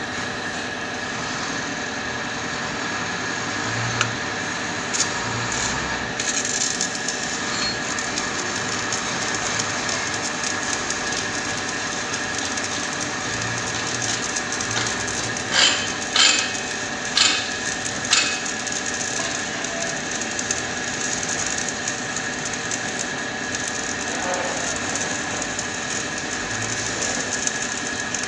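Stick (arc) welding on steel: a steady crackling hiss from the arc, with four sharp, loud cracks a little past halfway through.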